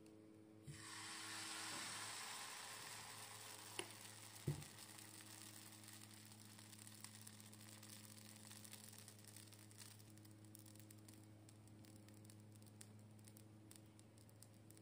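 Semolina baghrir batter poured into a hot nonstick frying pan sizzles as it hits, starting suddenly about a second in and fading slowly as it cooks. Two short knocks a few seconds in, then faint crackling ticks as bubbles form and pop on the batter, over a low steady hum.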